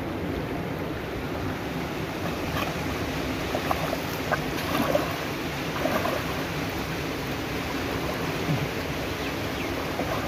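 Water splashing and sloshing as a person wades through shallow water dragging in a cast net, with several sharper splashes a few seconds in, over a steady background rush.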